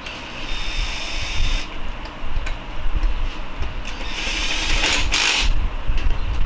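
Power ratchet spinning 10 mm bolts in on a Honda K-series transmission, in two runs: a steady whirring one at the start and a louder one about four seconds in.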